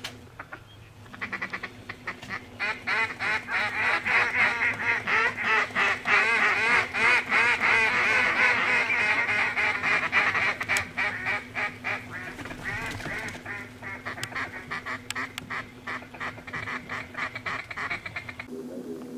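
A large flock of waterfowl calling all together, with dense overlapping duck quacks and Canada goose honks. The chorus builds over the first few seconds, is loudest in the middle, then thins and cuts off suddenly near the end.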